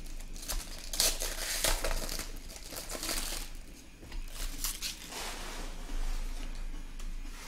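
Foil wrapper of a trading-card pack being torn open and crumpled by hand, crinkling in repeated irregular bursts.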